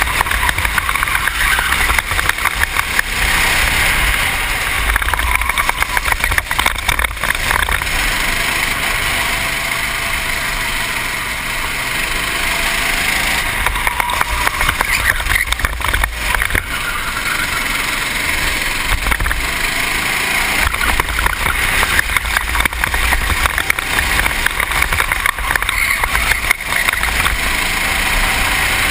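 Racing kart engine running hard at speed, with a steady rush of wind noise on the helmet-mounted camera's microphone.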